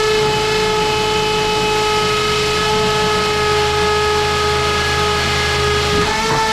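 Power drill running steadily with a constant high whine, drilling a hole in the tiled wall for a screw anchor; it briefly eases off and picks up again near the end.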